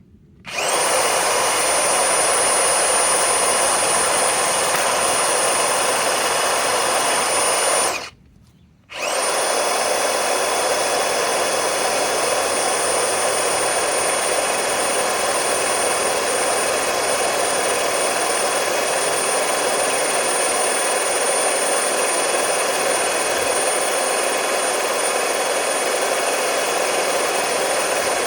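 DeWalt DCF961 cordless high-torque impact wrench driving a long lag screw into wood. It runs for about seven seconds, stops for about a second, then starts again and keeps running steadily.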